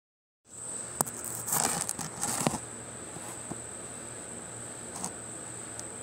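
A steady, high-pitched insect drone, with a cluster of crackling, rustling clicks in the first couple of seconds.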